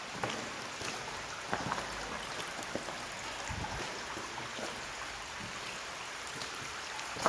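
Stream water running steadily, with a few short sharp knocks of footsteps over the flow.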